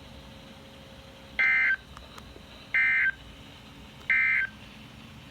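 Emergency Alert System end-of-message (EOM) signal: three short digital SAME data bursts, each about a third of a second, evenly spaced about 1.3 seconds apart, marking the end of the broadcast alert.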